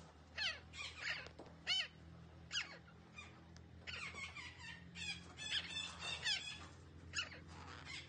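Red-breasted parakeet giving a string of short, harsh calls that sweep down in pitch, with a busier run of quick chattering notes from about four to six and a half seconds in.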